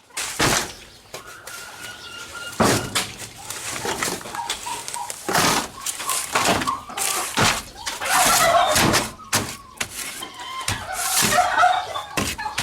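Repeated knocks, thuds and scraping from the barn-wall repair work, with poultry calling faintly.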